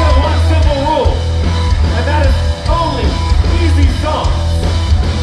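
Live rock band playing: a male singer singing over electric guitar, drums and a heavy, steady bass line.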